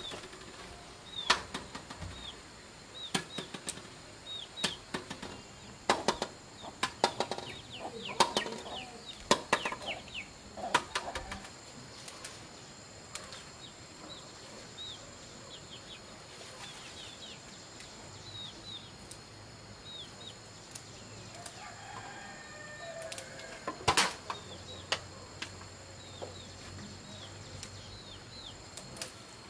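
Irregular sharp knocks and taps, thick in the first half with one loud knock later on, over many short, high, falling chirps from birds.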